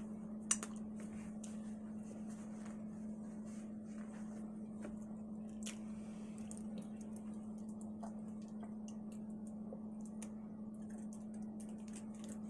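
Quiet eating sounds: faint chewing and scattered small clicks of mouth and utensils, over a steady low hum.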